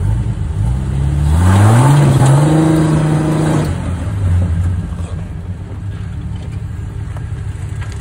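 Rock crawler's engine revving up as the vehicle climbs a rock ledge: the pitch rises over about a second and a half and holds for about two seconds, then drops back to a low idle just before the halfway point.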